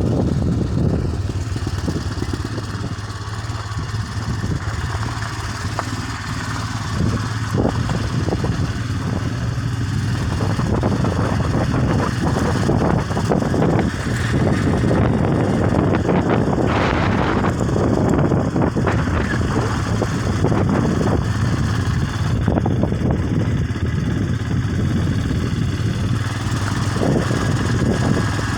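A vehicle engine running steadily while driving over a rough off-road track, with scattered knocks and rattles over the hum.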